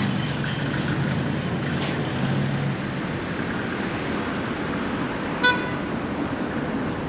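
Street traffic: a vehicle's engine hum for the first few seconds over a steady road noise, then one short car horn toot about five and a half seconds in.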